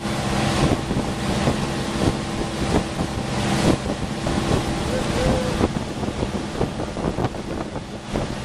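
Evinrude outboard motor running steadily at towing speed, with wind buffeting the microphone in gusts and the rush of the boat's churning wake.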